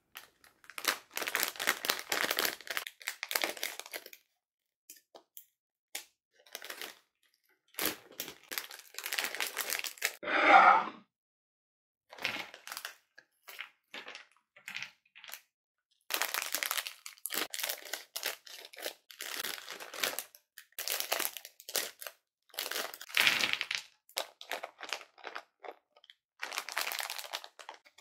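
Close-up crinkling and crackling of plastic snack packets being handled and torn, in bursts with short pauses. About ten seconds in comes a brief, louder rub: a bamboo platter sliding across a marble countertop.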